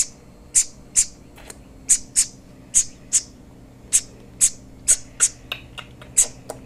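A nestling songbird, a sparrow or finch chick with its eyes not yet open, giving short high-pitched begging chirps, about two a second, over a faint low hum.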